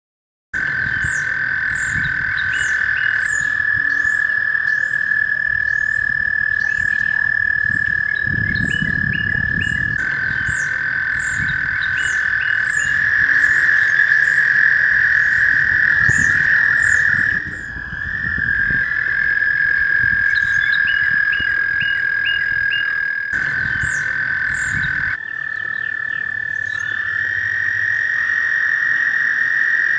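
A chorus of frogs calling in spring: a steady, high pitched trill that never breaks, with quick, repeated higher chirps over it.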